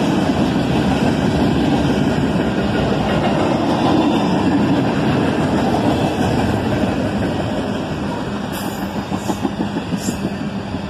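Freight train cars rolling past on steel rails: a steady rumble of wheels on track, with a few sharp clicks near the end.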